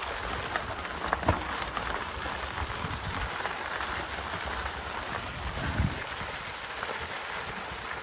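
Mountain bike rolling over a dirt and gravel trail: a steady gritty tyre noise with scattered small clicks and a couple of louder knocks, about a second in and near six seconds.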